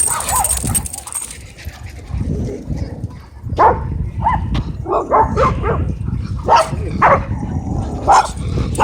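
Dogs barking in a scuffle: a quick string of sharp barks, about eight in five seconds, starting about three and a half seconds in, over a steady low rumble.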